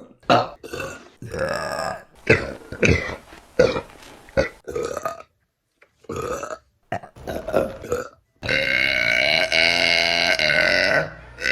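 Women burping: a run of short burps in quick succession, then, after a brief pause, one long drawn-out burp of about two and a half seconds near the end.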